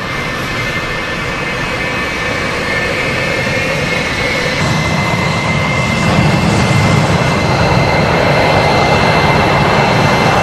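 Fighter-jet engines at afterburner power, F-4 Phantoms: a steady rush with a thin high whine, growing louder through the first half and then holding steady.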